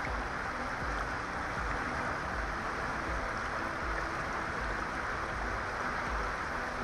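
Fast-flowing river running high after spring rains, a steady rush of water, with an uneven low rumble underneath.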